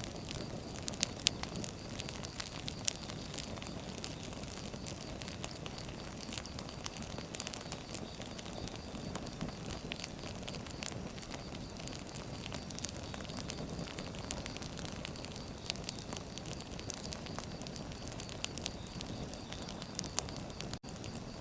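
Wood fire burning, with a steady low rush of flames and frequent sharp crackles and pops from the logs. The sound cuts out for an instant near the end.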